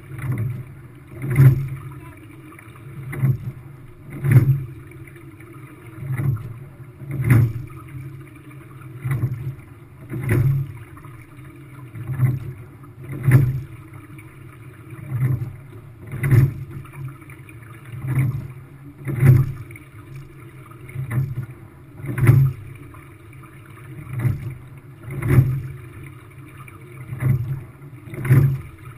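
Sculling quad rowing shell under way: knocks from the oars and oarlocks at each catch and finish, about one a second and alternately louder and softer, over a steady rush of water along the hull.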